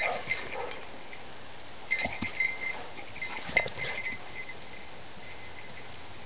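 Dogs at rough play: three short bursts of scuffling with brief vocal noises, about two seconds apart, then only a faint steady hiss.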